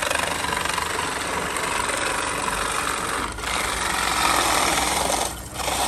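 Mechanical ice crusher grinding block ice into shaved ice as its lever presses the ice onto the blade: a steady, coarse grinding that breaks off briefly about three and a half seconds in and again near the end.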